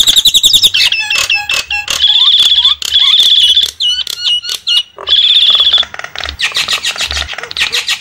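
Javan mynas (jalak kebo) calling loudly. There is fast, unbroken chattering: buzzy trills, harsh squawks and short whistled notes in quick succession.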